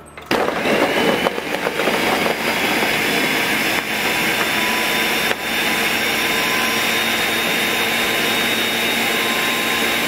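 Countertop blender starting up and running at high speed, chopping frozen banana chunks, pineapple and spinach into a smoothie. It is uneven for the first couple of seconds as the frozen pieces hit the blades, then settles into a steady whine as the mix turns smooth.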